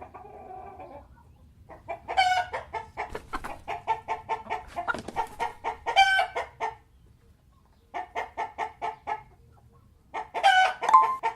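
Chicken clucking in quick runs, several of them ending in a longer drawn-out squawk. It comes in bouts with short pauses between them.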